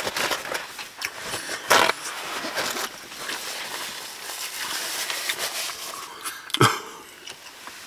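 Eating noodles: a steady rustle of handling with a few sharp knocks of utensils on the dish, the loudest about two-thirds of the way through.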